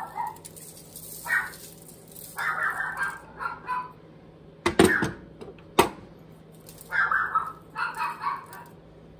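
An animal's repeated short calls, coming in bursts every second or so. There are two sharp clicks about a second apart in the middle.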